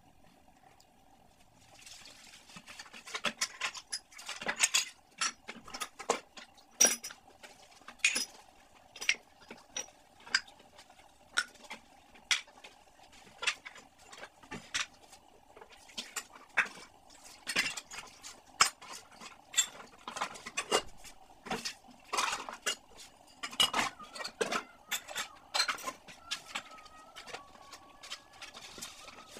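Dishes being handled and stacked by hand: a quick, irregular run of clinks and knocks from glass tumblers, steel cups and aluminium pots set down on a stone counter and dropped into a plastic basin, starting about two seconds in. A faint steady hum runs underneath.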